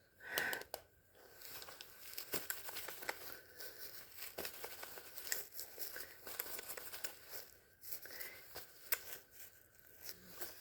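Faint rustling and crinkling handling noise with many small scattered clicks.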